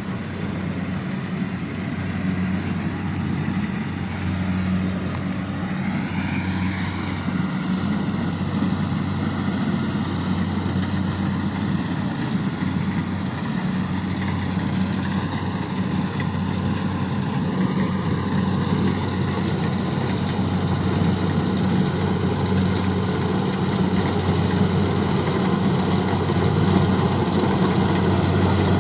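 Heavy farm machine's engine running steadily with a low, even hum, growing slightly louder over the stretch.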